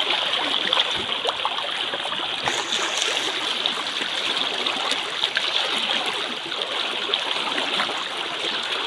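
Water of a stream flowing steadily, an even splashing hiss with small crackles throughout.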